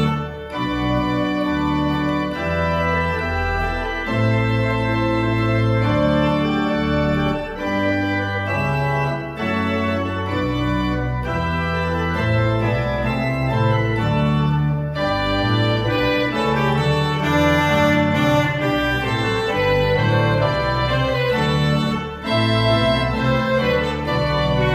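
Pipe organ playing a trumpet tune in G major: a march-like tune over sustained chords and a low bass line that moves from note to note, playing on without a break.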